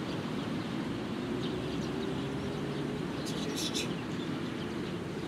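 Steady outdoor background noise with a faint hum that slowly rises in pitch. A few short, high bird-like chirps come a little past the middle.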